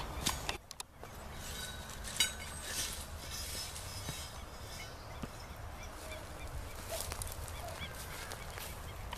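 Chicken-wire mesh being spread over a brick fire pit, rattling and scraping, with a few sharp clicks in the first three seconds. Faint bird calls come and go in the background.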